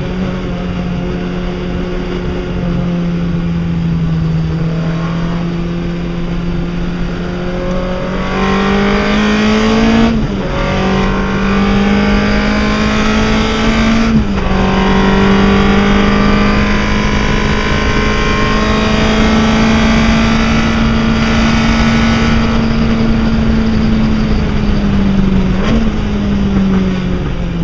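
Chevron B8 race car engine heard from the passenger seat, accelerating hard: its pitch climbs and drops sharply at two upshifts about four seconds apart, then holds at high revs, with a brief blip and drop near the end.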